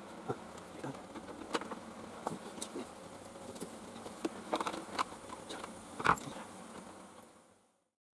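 Irregular light clicks and taps of hand work on the motorcycle's parts and wiring, over a faint steady buzzing hum; the sound fades out about seven and a half seconds in.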